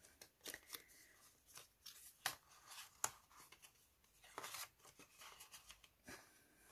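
Faint rustling and crinkling of cardstock pieces being handled and turned over, with a few short, sharp paper crackles scattered through.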